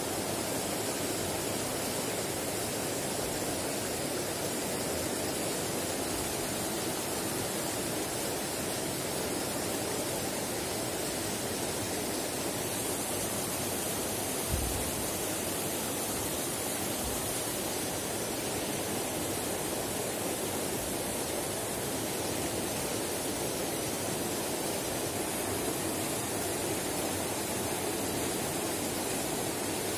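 Shallow rocky river rushing over stones in a steady, even rush of water, with one brief low bump about halfway through.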